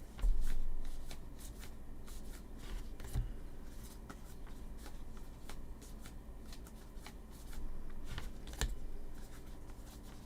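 Paper trading cards being flipped and slid through the hands, a steady run of light clicks and rustles. A dull thump comes about half a second in.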